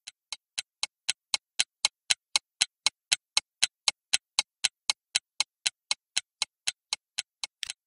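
Clock or stopwatch ticking sound effect counting down a timed break: even ticks about four a second, swelling in at the start and fading out near the end.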